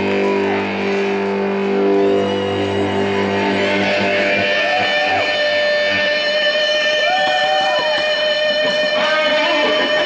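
Electric guitar music: held notes with bending pitches, over a low held chord that fades out about halfway through.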